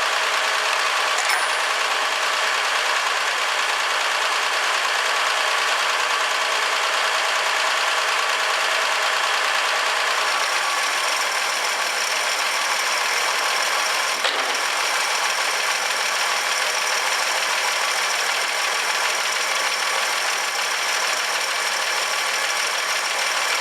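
1964 Ford F100 pickup engine idling steadily on its freshly rebuilt carburetor, running smoothly as it warms up.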